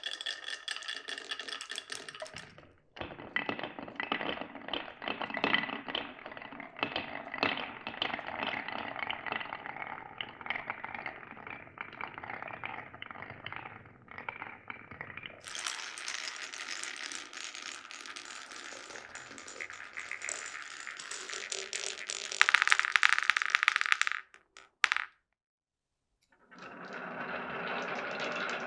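Marbles rolling and clattering along a marble run's wooden rails and clear plastic pipes, many small clicks and knocks. The sound changes abruptly a few times, with a louder stretch followed by a short pause about 25 seconds in.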